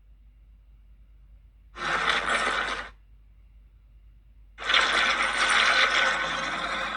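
Two kaiju sound effects separated by silence: a short one of about a second, then a longer one of nearly three seconds, both dense and rasping rather than a clean pitched tone.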